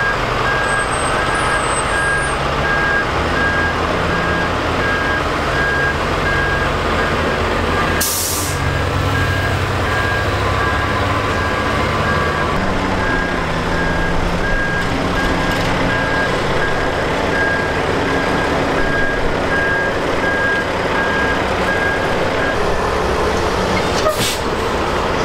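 Diesel engine of a heavy-haul semi truck running, with a reversing alarm beeping steadily until near the end. Two short air-brake hisses, about a third of the way in and again near the end.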